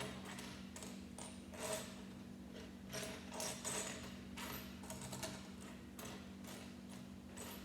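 Plastic Lego bricks clicking and rattling as pieces are handled and pressed together: an irregular scatter of small clicks over a steady low hum.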